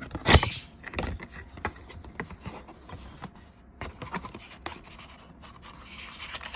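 Cardboard watch box being opened by hand. A loud scrape comes about a third of a second in, then scattered taps and clicks as the flaps are folded back, and a longer rustling scrape near the end.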